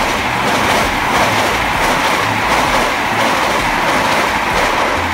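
Passenger train coaches passing close by at speed: a steady rushing rumble with faint, regular clatter from the wheels on the rails.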